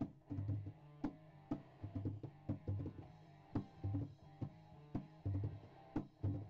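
Instrumental rock music: a drum kit plays a steady beat of sharp hits over heavy bass and guitar, with no singing.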